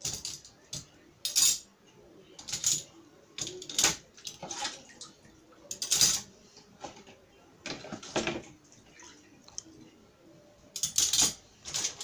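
Metal cutlery clinking and rattling as it is handled, in irregular bursts of sharp clinks.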